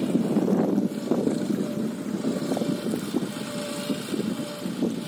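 Tractor engine running steadily at a distance, with wind buffeting the microphone in uneven gusts.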